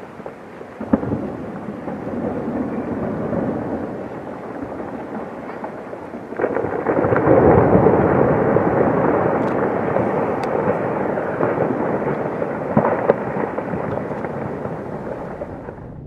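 Rockfall off a granite cliff: a continuous rumble of rock breaking up and tumbling down the cliff face. It swells suddenly about six seconds in and fades slowly, with a couple of sharper impacts, one near the start and one late on.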